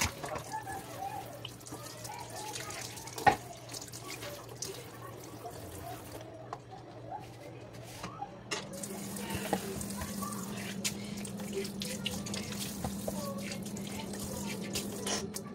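Kitchen tap running and splashing into a sink during washing-up, with scattered light clicks and a sharp knock about three seconds in.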